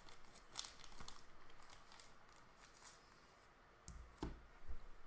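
Rigid plastic trading-card holders being handled: faint plastic rustling and small clicks, then a few dull knocks about four seconds in as the cases are set down on the table.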